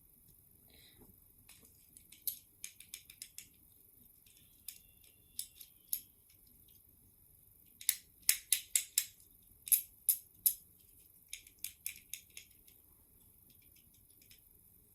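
Small hard objects being handled: sharp clicks and rattles in four quick clusters, the loudest run of about ten clicks coming a little past halfway.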